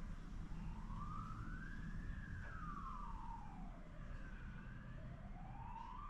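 A siren wailing slowly, its pitch rising to a peak about two seconds in, falling to its lowest about five seconds in, then rising again, over a low steady rumble.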